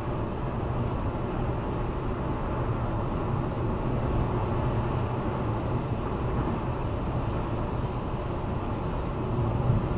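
Steady road noise inside a car cruising at freeway speed, about 76 mph: tyre noise on concrete pavement with a low drone from engine and drivetrain. A short louder bump comes near the end.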